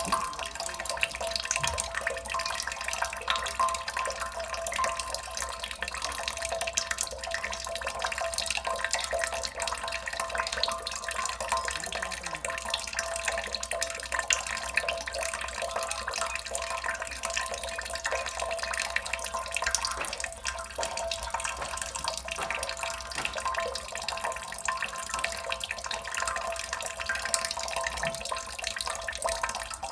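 Water dripping and trickling without pause: a dense, even patter of many small drops, like a tap splashing into a sink.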